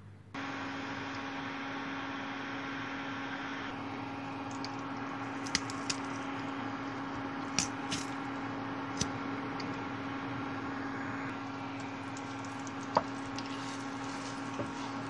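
Fat sizzling in a non-stick frying pan, a steady hiss with a steady hum beneath it, and a few sharp clicks as a wooden spatula knocks the pan while stirring.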